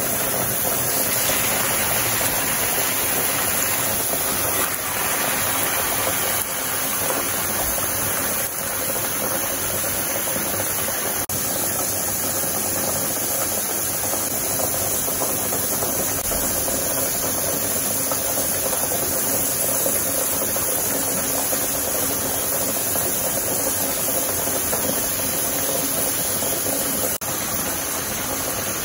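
Hot oil sizzling steadily around spiral-cut potatoes on skewers as they deep-fry in a pan.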